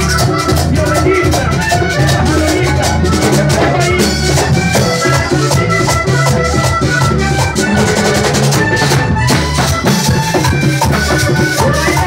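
Live vallenato band playing: a button accordion melody over a steady bass line, with a metal tube shaker (guache) playing quick even strokes and conga drums keeping the rhythm.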